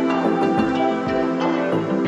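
Background music: a soft, ambient new-age track with steady sustained tones and gentle struck notes.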